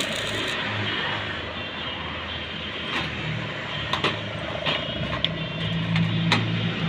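Stick-welding arc crackling and hissing for the first second or two, then several sharp metal clinks as the welded steel pieces are handled on the steel plate, over a steady low hum.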